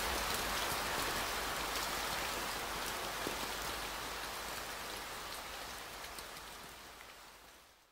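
Steady rain with many fine drop ticks, fading slowly and dying away to silence at the very end.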